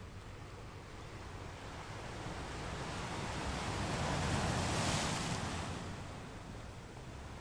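Sea surf: a wave washing in, swelling to a peak about halfway through and then falling away.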